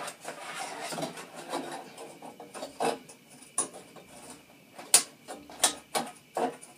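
Plastic light-fixture grid being worked down into a barrel around the pipes: scraping and rubbing at first, then several separate sharp clicks and taps as it is pushed into place, the loudest about five seconds in.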